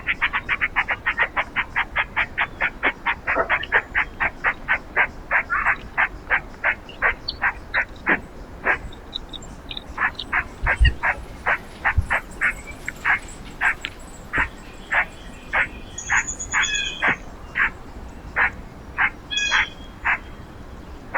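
An animal calling over and over in short, sharp notes, about four a second at first and slowing to about two a second, with a few higher bird chirps over it in the second half.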